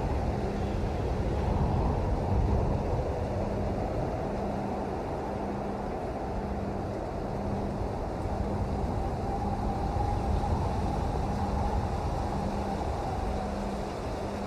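Steady rain noise, low and dense, with a faint low hum that pulses about once a second.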